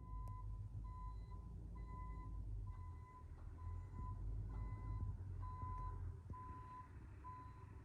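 Backup alarm on a reversing construction vehicle beeping steadily, about once a second, over a low engine rumble.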